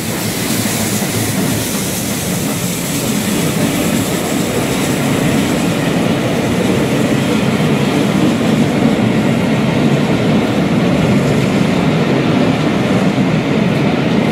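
Passenger coaches of a steam-hauled train rolling past close by: a steady rumble of wheels on the rails with some clickety-clack. The high hiss from the departing locomotive dies away near the end.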